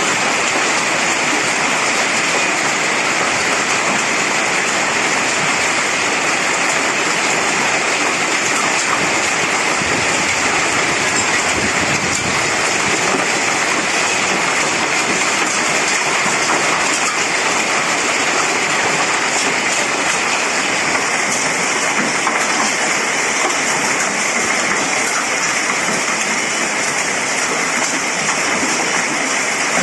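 Torrential rainstorm: a loud, steady hiss of heavy rain pouring down without a break.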